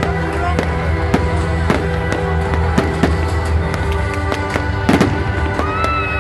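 Fireworks going off in a string of sharp bangs and cracks, the heaviest cluster about five seconds in, over loud music with a steady bass line.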